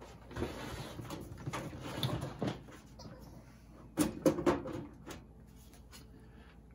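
Sheet-metal side panel of a PC tower case sliding back with a scraping rattle, then several sharp metal knocks about four seconds in as it comes free and is lifted off.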